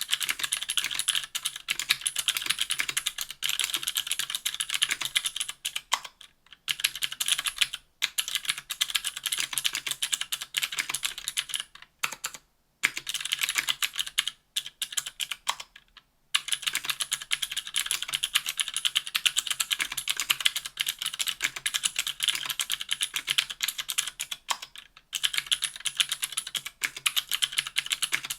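Continuous typing on a 60% aluminium-plate keyboard with stock Cherry MX Blue clicky switches: a dense, rapid stream of sharp clicks, broken by a few brief pauses.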